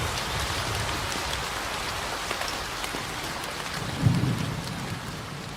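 Steady rain falling, with a low rumble of thunder about four seconds in; the rain slowly grows quieter toward the end.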